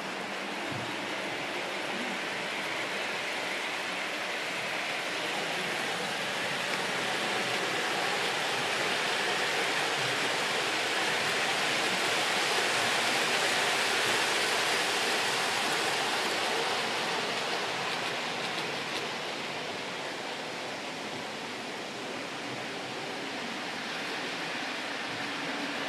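Weaver O gauge GG1 model locomotive and its thirteen passenger cars rolling along the track: a steady rushing noise of wheels on rail. It swells as the coaches pass close about halfway through, then eases off.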